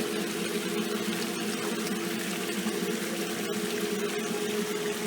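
Water running steadily, with a steady mechanical hum underneath.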